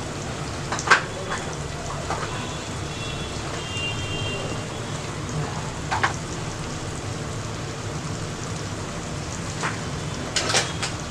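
Onion, tomato and spice masala frying steadily in a pan, an even sizzle, with a few short knocks about a second in, around six seconds in, and near the end.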